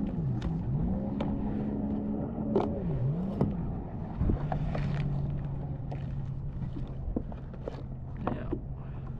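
A low engine hum whose pitch dips and rises several times over the first three seconds, then holds steady. Scattered clicks and knocks are heard over it, with a dull thump about four seconds in.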